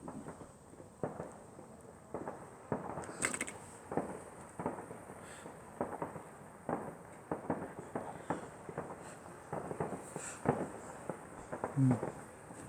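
Fireworks going off: an irregular, rapid series of sharp bangs and crackling pops, two or three a second.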